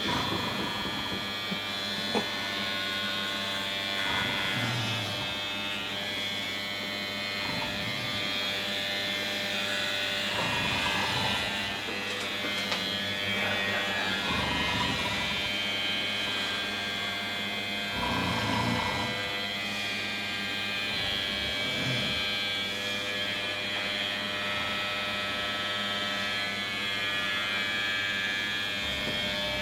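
Electric hair clippers running with a steady buzz as they cut hair.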